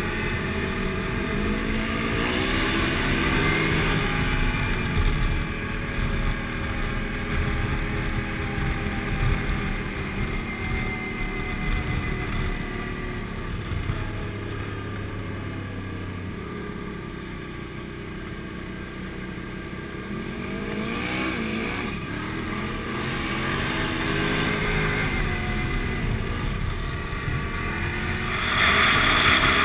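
Motorcycle engine running on the road with wind rush on the microphone, its pitch rising and falling as the bike speeds up and eases off. Near the end a louder, hissier rush of wind comes in.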